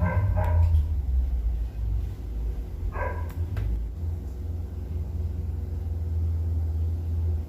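A dog barking a few short times in the background, at the start and again about three seconds in, over a steady low rumble.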